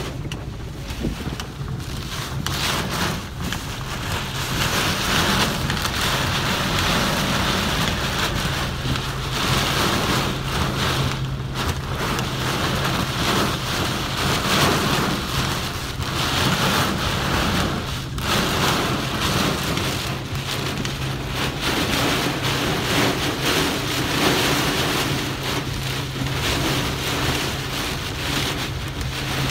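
Heavy rain pouring on a car's windows and body, heard from inside the car: a dense, steady hiss with a steady low hum underneath.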